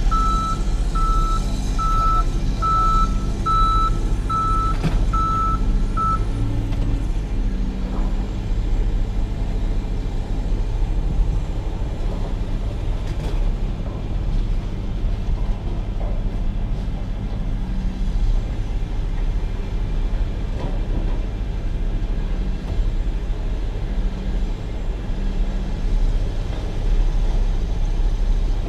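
A vehicle's reversing alarm beeps about twice a second, then stops about six seconds in. Under it a heavy engine runs steadily with a low rumble throughout.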